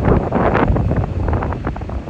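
Wind buffeting the microphone in rough gusts, loudest about half a second in, with no train horn sounding.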